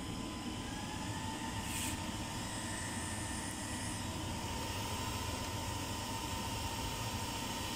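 Cooling fans of a newly switched-on Ericsson telecom rectifier's modules running steadily: even fan noise with a thin steady whine, and a short click about two seconds in.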